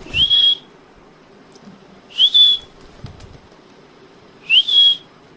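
Three short whistled calls about two seconds apart, each sliding quickly up in pitch and then holding a high steady note for a moment.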